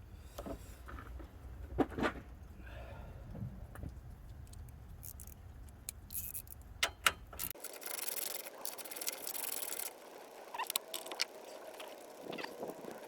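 Hand tools clinking, knocking and scraping on metal as a bolt is worked with a 10 mm wrench, with a few seconds of rapid clicking just after the middle.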